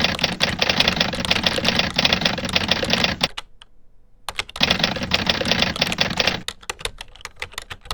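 Computer keyboard keys mashed in rapid, dense clattering during a game. The clattering stops about three seconds in, starts again a second later, then thins to scattered single key clicks near the end.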